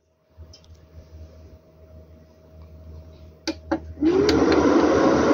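Fivestar FS1008 solar inverter powering up: a faint hum, two sharp clicks about three and a half seconds in, then its cooling fan starts loudly with a rush of air and a whine that rises and levels off.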